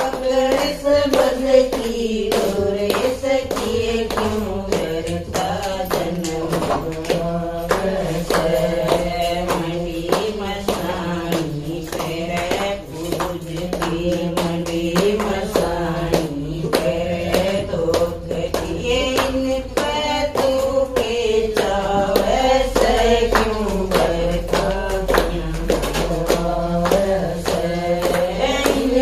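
Group of women singing a Haryanvi devotional bhajan together, keeping time with steady rhythmic hand clapping.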